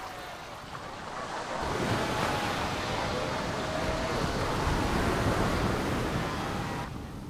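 Ocean waves washing in the shallows, then louder, steady surf breaking over rocks from about a second and a half in, dropping away suddenly near the end.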